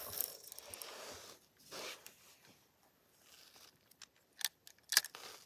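Spinning rod and reel in use just after a cast: a rushing noise that fades over the first second and a half, a short swish, then sharp clicks from the reel and rod handling, the loudest a pair near the end.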